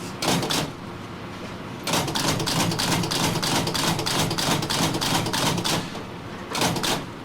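Rapid mechanical clatter of many sharp clicks over a low hum: a short burst at the start, a dense run from about two to six seconds in, and another short burst near the end.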